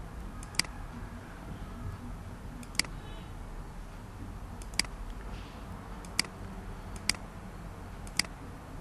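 Computer mouse clicking six times at irregular intervals of about one to two seconds, over a steady low hum.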